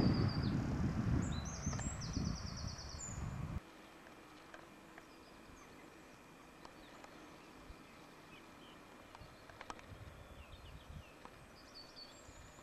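A low rumbling noise that fades, with a songbird singing rapid trills of repeated high notes. About three and a half seconds in it cuts off abruptly to a faint background with occasional distant bird chirps.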